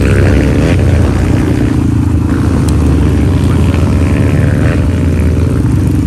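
Motorcycle engine running at speed under a fast-riding rider, over a heavy low rumble; its pitch rises briefly about half a second in and again near the end.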